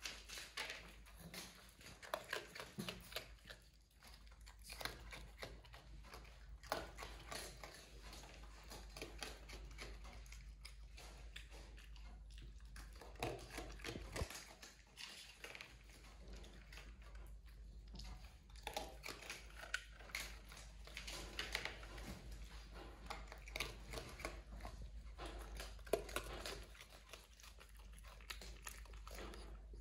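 A raccoon chewing and crunching food at close range, with irregular crackling bites.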